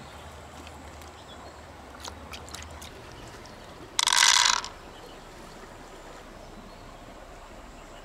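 A brief splash of water about four seconds in, with a few faint clicks before it.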